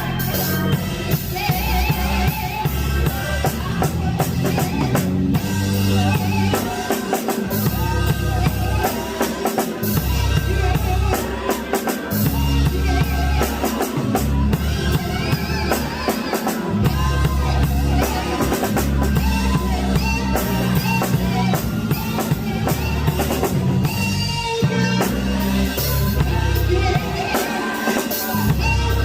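Music with a steady drum-kit beat and bass, with singing over it.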